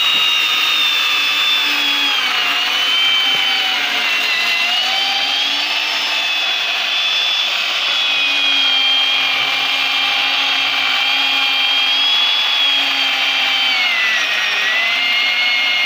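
Corded electric chainsaw cross-cutting a log, its motor and chain running at a steady whine. The pitch sags as the chain bites in under load, about two seconds in, again around four to five seconds, and near the end.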